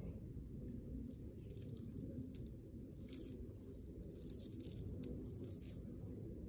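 A hand rubbing over dry, stringy bark, giving faint scattered crackles and scratches, over a low steady rumble.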